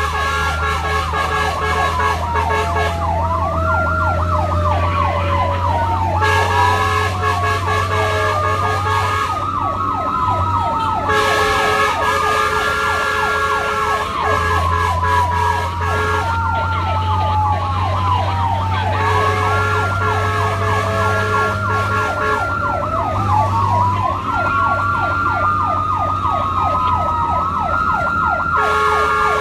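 Fire and rescue vehicle sirens running while responding to a fire alarm. Slow wailing sweeps and fast yelping sweeps overlap, as from more than one siren. A steady horn-like tone comes in for several blasts of about three seconds each, over a low engine hum from the moving vehicle.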